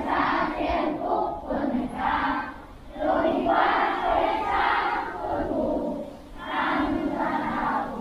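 A large crowd of schoolchildren singing together in unison, in phrases broken by short pauses for breath.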